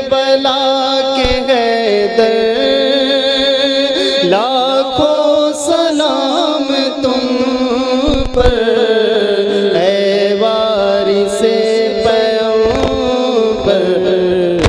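A man's voice singing a slow devotional chant into a microphone, holding long notes with ornamented pitch bends.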